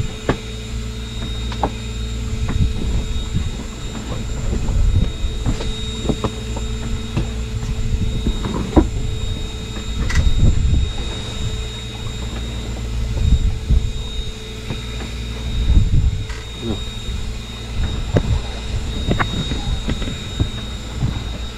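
Steady drone of a boat's engine with a low rumble, broken by scattered knocks and thumps.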